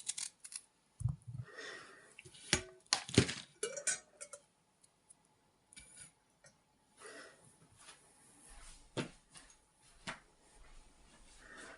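A small kitchen knife cutting peeled ginger into small pieces: irregular knocks on the board, the loudest about three seconds in, with clinks of utensils and dishes and soft scraping.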